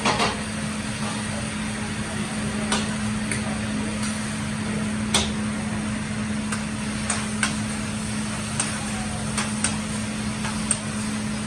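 Metal spatulas clicking and tapping on a hot teppanyaki griddle about a dozen times at irregular intervals, over a steady hiss and low hum.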